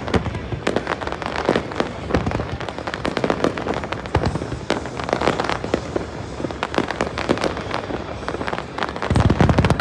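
A fireworks display with shells bursting in quick, irregular succession: many sharp bangs and crackles overlapping. A heavier, booming burst comes near the end.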